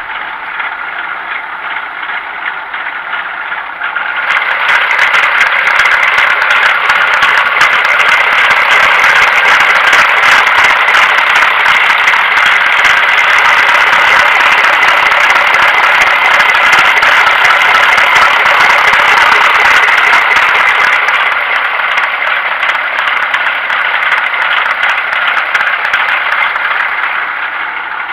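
Ural truck's YaMZ-238 V8 diesel idling with a steady clatter, growing louder about four seconds in and easing back down about twenty-one seconds in.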